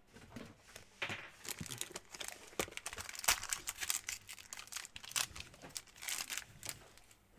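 Foil trading-card pack wrapper being torn open and crinkled by hand, a run of irregular crackles and rips.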